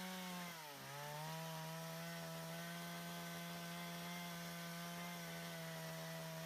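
Two-stroke chainsaw running steadily at a high cutting speed, trimming a log end at a log-house corner; its pitch sags briefly just under a second in as the chain takes load, then holds steady.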